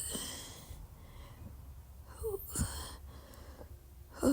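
A person's breathing and throat sounds: a breathy exhale at the start, then about two seconds in a brief throaty sound with a short falling pitch and a sharp click.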